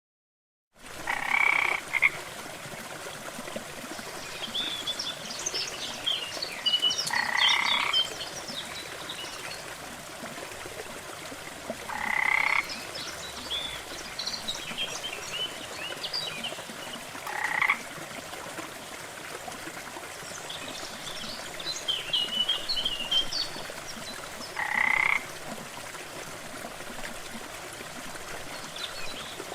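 A small waterfall's steady rush of water, with a frog croaking loudly about every five seconds. Scattered high chirps fall between the croaks.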